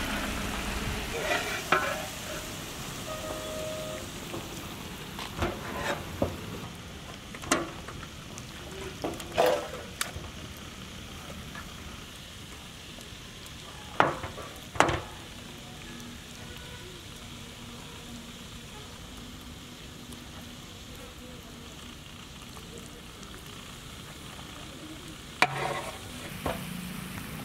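Chicken in a sticky chilli-sauce glaze sizzling in a metal pot with a steady hiss. Scattered sharp clinks of a utensil on metal break in, the loudest twice near the middle and once near the end.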